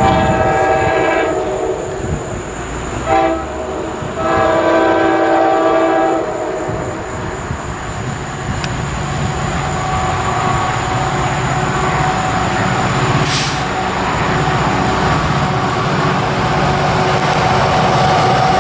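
New Jersey Transit locomotive's air horn sounding a long blast, a short one and another long one, followed by the growing rumble of the approaching passenger train.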